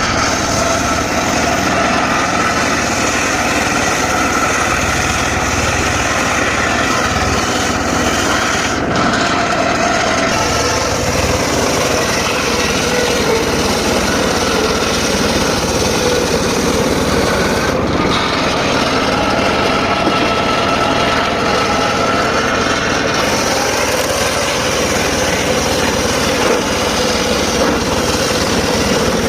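Engine-driven circular sawmill running steadily, its blade sawing dry teak wood.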